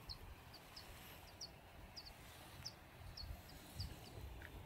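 A small bird calling in short, faint, high chirps, repeated every half second or so, over a faint low rumble.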